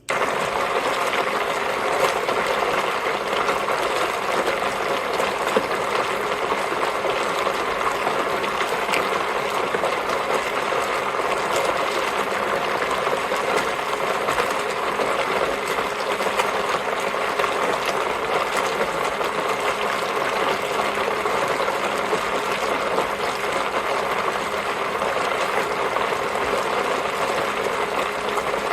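A small portable fold-down washing machine starts suddenly and runs steadily, its impeller churning soapy water and Lego bricks so that the bricks grind and clatter against each other. The owner takes the grinding as a sign that the impeller is hard on the bricks.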